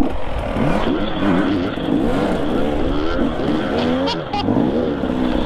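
Dirt bike engine revving up and down, its pitch rising and falling again and again as the throttle is worked.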